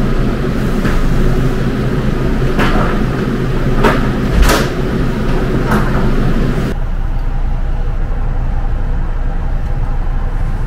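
Steady low machinery hum with several sharp knocks and clatters of stacked plastic crates and a wheeled dolly being pushed and set down. About two-thirds of the way through, the clatter stops abruptly and only a lower, steadier hum remains.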